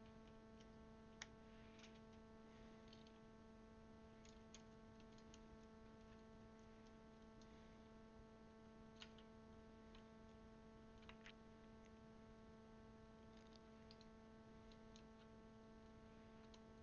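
Near silence over a steady electrical hum, with a few faint, scattered clicks of plastic keycaps being handled and pressed onto mechanical keyboard switches.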